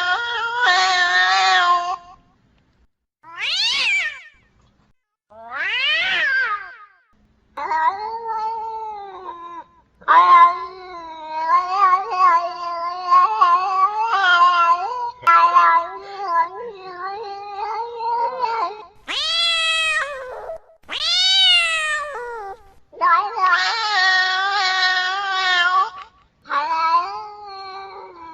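Cats fighting: a string of long, wavering caterwauls and growling howls, broken by short rising-and-falling yowls and a few brief pauses.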